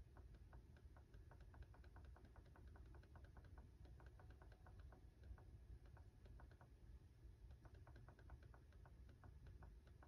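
Faint, rapid clicking, a few clicks a second, from buttons pressed over and over to step the Dreo ceramic space heater's timer setting, over a low steady hum.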